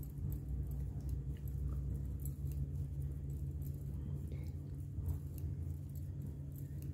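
Knitting needles clicking and scraping lightly as stitches are worked in wool, heard as irregular soft ticks over a steady low hum.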